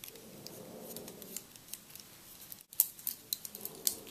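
Irregular small clicks and ticks of wooden craft sticks and rubber bands being handled, as a small rubber band is wound tightly around the end of two stacked craft sticks. The sharpest clicks come in the second half.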